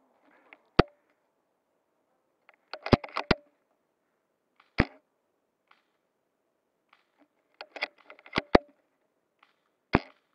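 Airsoft guns firing: sharp single cracks about a second in, near the middle and near the end, and quick runs of several shots around three seconds in and again around eight seconds in.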